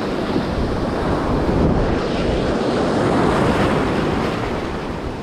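Surf breaking and washing up a beach, with wind buffeting the microphone; the wash swells over the first few seconds and then eases off.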